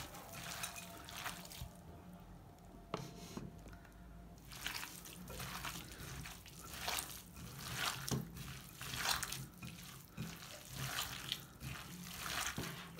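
Hands kneading raw minced meat with chopped vegetables in a glass bowl: repeated wet squishing strokes, with a short lull about two seconds in.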